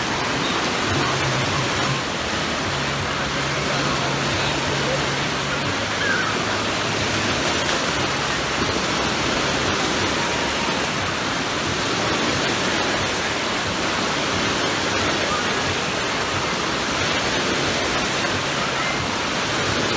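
Wave pool water churning and breaking in the shallows, a steady rush of surf with faint voices of swimmers underneath.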